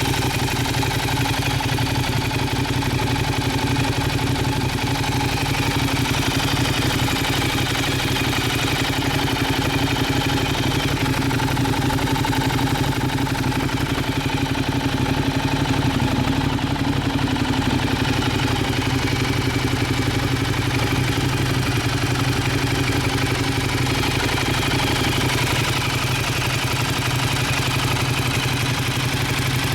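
Ducati Diavel's 1198 cc L-twin engine idling steadily through an aftermarket silencer.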